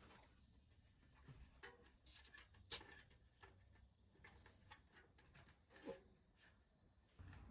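Near silence with a few faint, scattered clicks and taps; the sharpest click comes nearly three seconds in.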